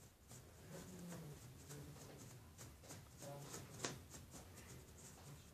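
Faint, irregular soft brushing and rubbing as a brush dabs baby powder onto a small squishy silicone toy held in the fingers, barely above near silence.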